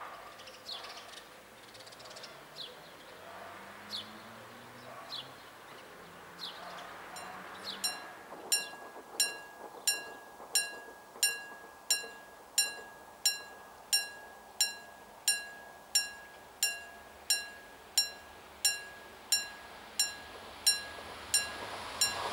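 Birds chirp at first. From about eight seconds in, a warning bell strikes steadily, about three strikes every two seconds. Near the end the rumble of an approaching electric train rises under it.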